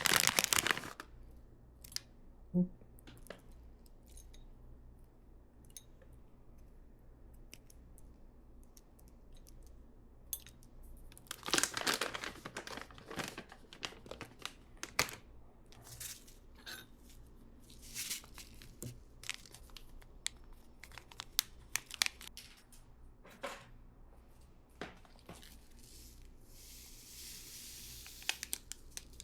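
Intermittent crinkling and rustling of handled material, with scattered small clicks and taps. A louder spell of crinkling comes about twelve seconds in, and a soft hiss near the end.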